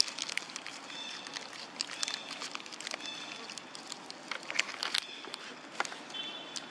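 Plastic snack wrappers crinkling and crackling as young macaques bite and chew on them: many sharp, irregular crackles. A few brief high chirps come in about a second in, about three seconds in and near the end.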